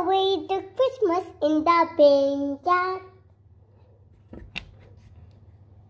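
A young girl's voice, partly sung with held notes, for about three seconds; then quiet, with two short light knocks about four and a half seconds in.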